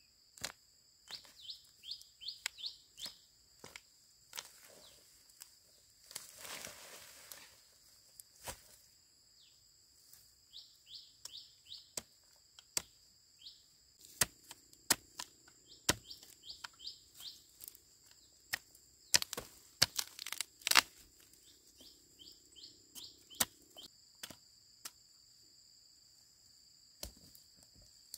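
Irregular sharp cracks and snaps over a steady high two-tone insect drone, with a rustle about six seconds in and the loudest cracks about two-thirds through. Quick runs of short descending bird chirps break in several times.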